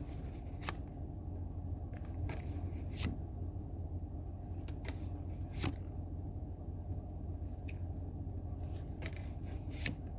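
Pokémon trading cards being handled and flipped through by hand: a string of short, irregular rustles and slides of card stock. A steady low hum runs underneath.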